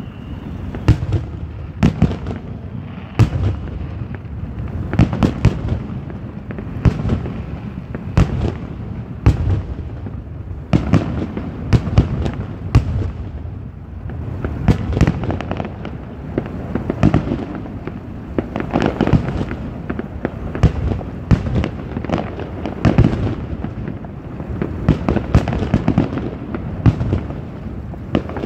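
Aerial fireworks display: a continuous barrage of shell bursts, sharp bangs coming irregularly, often one or two a second, over a low rumble that never lets up.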